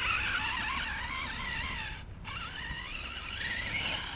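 Radio-controlled off-road truck's motor running at varying throttle, its pitch rising and falling as it drives over the dirt piles. It cuts out briefly about halfway, then climbs in pitch again near the end as the truck runs up a mound.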